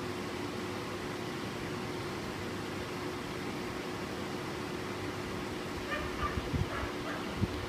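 A few short animal calls about six seconds in, over a steady hum and outdoor background noise, with low thumps of wind or handling on the microphone near the end.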